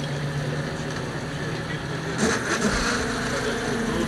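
Fishing boat's engine running steadily at idle, with its pitch shifting slightly after a short burst of noise about two seconds in.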